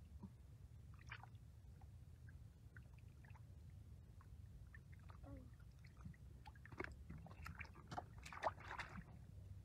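Faint splashing and squelching of hands groping in shallow muddy water for catfish, with a cluster of louder splashes near the end.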